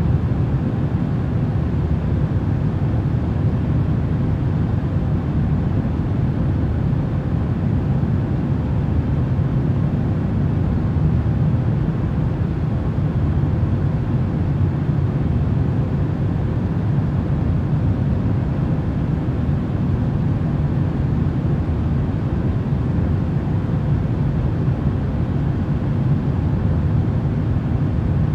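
Continuous, unchanging deep rumbling noise, heaviest in the low end with a faint steady hum running through it: a sleep noise track.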